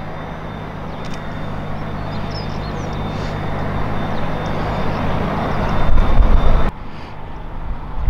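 Vueling Airbus A320's IAE V2500 jet engines on final approach: a steady rumble with a faint high whine. It grows louder, then cuts off abruptly about two-thirds of the way in, leaving quieter outdoor noise.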